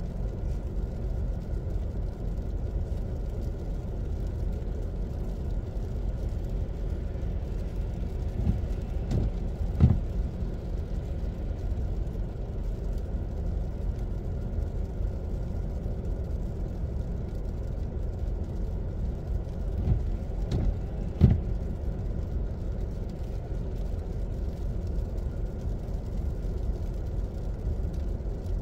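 Steady low hum of a car's engine and cabin heard from inside the car as it idles in slow winter traffic. Two pairs of short soft thumps come about eleven seconds apart, each pair about a second and a half between its thumps.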